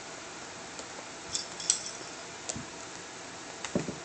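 Cat toy ball with a small bell jingling and clinking as two cats bat at it, the brightest clinks about halfway through. A few soft thumps near the end as the cats scramble on the carpeted cat tree.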